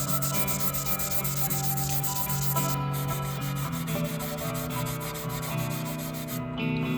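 Fine 600-grit sandpaper wet-sanding a guitar's lacquered finish in quick, even back-and-forth strokes, levelling a super-glue and paint fill over chipped paint. Background music plays underneath.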